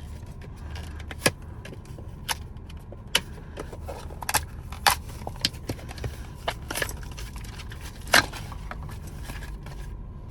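Wire strippers being handled: irregular light metallic clicks and clinks, about a dozen over several seconds, over a low steady hum.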